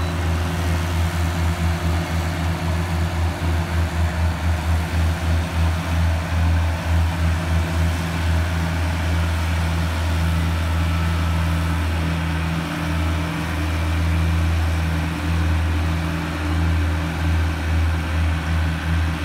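Engines of a motor grader and a skid-steer loader running, a low steady drone that pulses unevenly in loudness at times.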